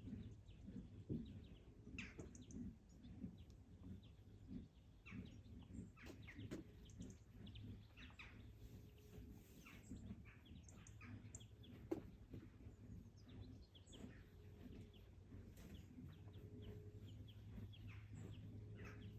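Faint, scattered bird chirps over a low steady hum, with one sharp click about twelve seconds in.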